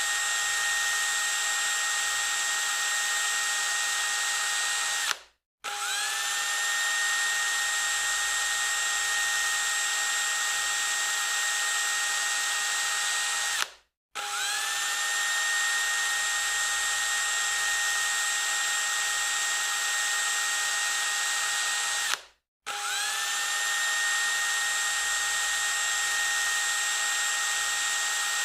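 Electric drill running at full speed with a steady high whine. It cuts off abruptly three times, about every eight and a half seconds, and each time starts again with a quick rising spin-up.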